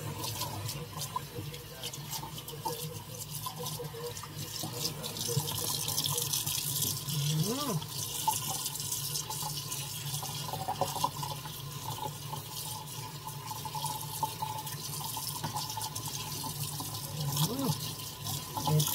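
Kitchen tap running steadily into a stainless steel sink, the stream splashing as hands rinse wet puppies under it.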